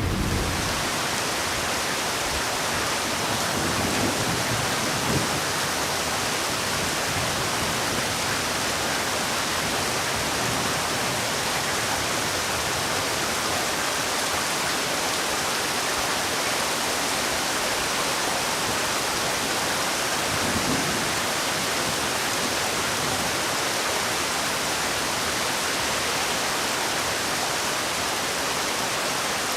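Heavy rain falling steadily, a dense even hiss with no single drops standing out. A low thunder rumble dies away in the first second.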